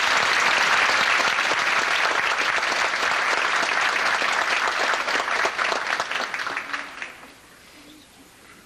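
Theatre audience applauding, dense and steady, then dying away about seven seconds in.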